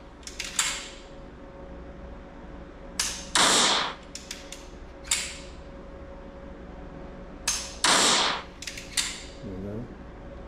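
9mm Springfield pistol dry-fired twice with a laser training cartridge in the chamber: each shot is a sharp click, followed a moment later by a short noisy burst and then a few lighter clicks.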